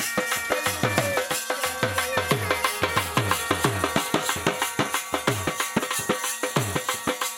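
Saraiki folk music: a dhol beaten fast with a curved stick and a thin cane, its deep strokes sagging in pitch, over the steady drone and melody of a been (bagpipe).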